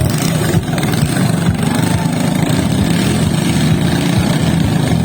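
Racing boat engines running loud and steady.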